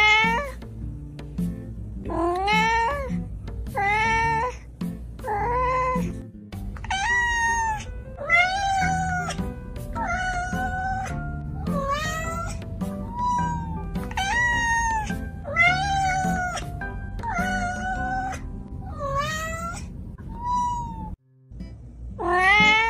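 A long run of house cat meows, about one every second and a half, some rising and some falling in pitch, over background music with a steady low beat. The sound drops out briefly near the end.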